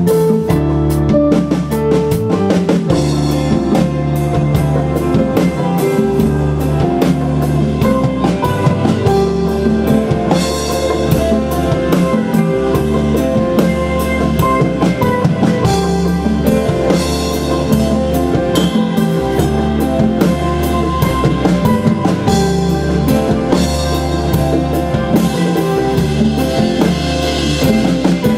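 Rock band playing an instrumental passage live in the room: drum kit keeping a steady beat under electric guitar and keyboard, with no singing.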